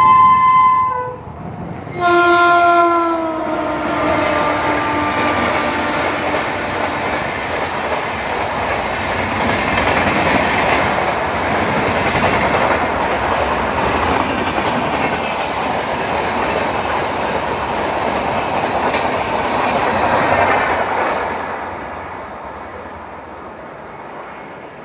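Indian Railways WAP-7 electric locomotive sounding its horn: one blast ends about a second in, and a second blast from about two seconds drops in pitch as the locomotive passes. Its express train's coaches then rush past at speed with rail clatter, fading away near the end.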